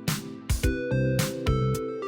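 Instrumental background music: held keyboard or synth chords over a bass line, with drum hits keeping a steady beat.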